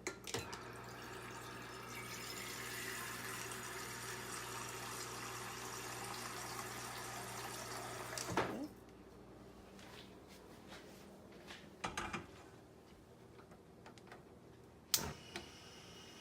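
Water running from a tap for about eight seconds, then shut off suddenly; a few short knocks follow, the loudest near the end.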